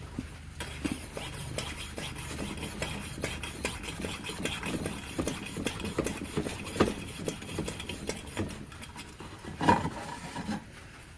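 Hand pump of a Coleman 502 stove being worked to pressurize the freshly filled fuel tank: a run of short clicks and rubbing strokes, with a louder knock near the end.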